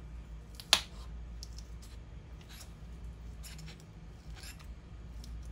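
A spatula prying a glued battery cell off the aluminium case of a MacBook Pro A1502, its adhesive softened with isopropyl alcohol. One sharp click comes about a second in, followed by a few fainter clicks and scrapes as the cell lifts.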